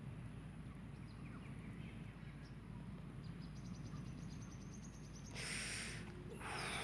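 Outdoor background of a steady low rumble with faint, high, rapidly repeated chirping in the middle. Near the end come two short hissing sounds about a second apart.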